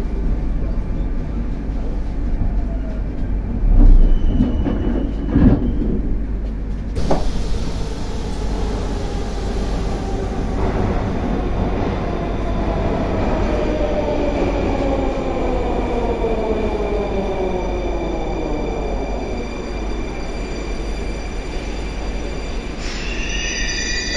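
Moscow Metro 81-760A/761A "Oka" train running and slowing into a station: rumbling running noise with two loud knocks about four and five and a half seconds in, then the traction drive's whine falling slowly in pitch as the train brakes. Near the end come a few high, stepped whistling tones as it nears a stop.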